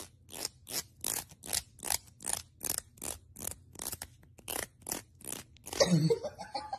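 The teeth of a plastic comb are strummed over and over, a short rasp about three times a second. Near the end the calico cat gags, set off by the comb's sound, louder than the strokes.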